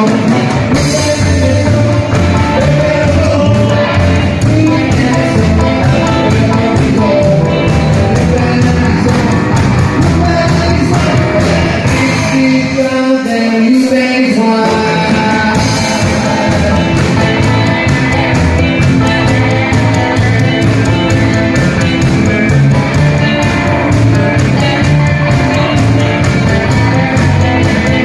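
Live rock'n'roll band playing: upright double bass, drums and hollow-body electric guitars with a sung lead vocal. About halfway through, the bass and low end drop out for a moment, then the band comes back in.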